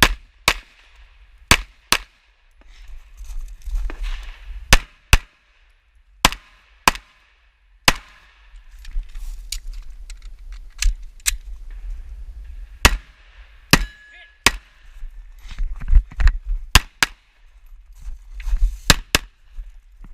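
Pistol shots fired singly and in quick pairs at irregular intervals, about twenty in all, with rumbling and movement noise between strings.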